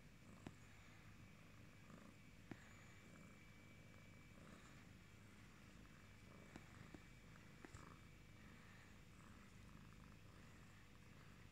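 British Shorthair cat purring faintly and steadily, with a few soft clicks.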